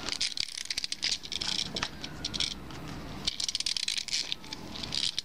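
Clockwork motor of a cheap plastic wind-up toy train being wound by hand: fast ratchet clicking in several short runs.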